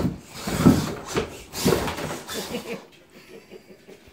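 Redcat RC rock crawler driving down off the logs and ramp onto the floor, with several knocks and scrapes of its tires and plastic chassis on wood over the first three seconds, then quieter as it drives off.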